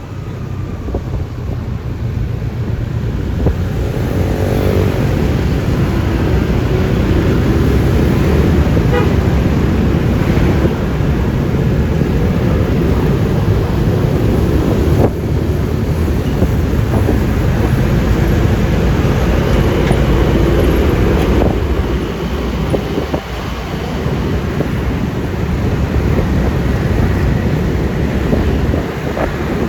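Road noise from riding a Yamaha Lexi LX 155 scooter in traffic: a steady rush of wind and tyres, with the scooter's engine and passing vehicles. It grows louder over the first few seconds, then stays up.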